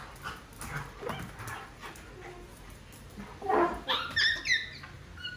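A pet animal gives a quick run of short, high squeals that fall in pitch, about three and a half seconds in; before that there are only faint sounds.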